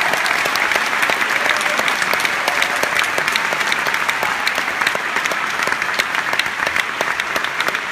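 Large theatre audience applauding steadily, with individual claps close to the microphone standing out sharply from the mass.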